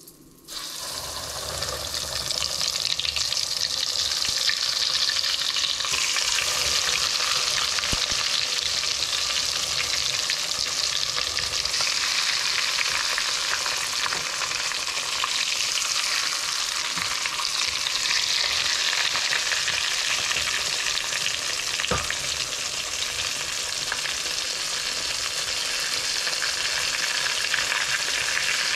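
Breaded chicken breast going into hot oil in a stainless steel pot: the oil bursts into sizzling about half a second in and keeps up a loud, steady frying hiss, with a couple of sharp clicks along the way.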